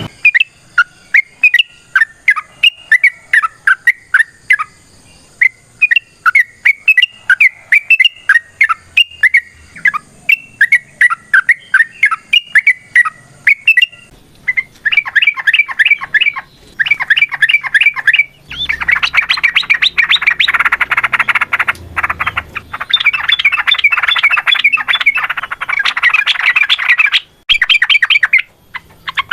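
Yellow-vented bulbul singing: short bubbling, warbling phrases at first, then from about halfway long fast chattering runs with only brief breaks, the long 'ropel' song that keepers use as a lure.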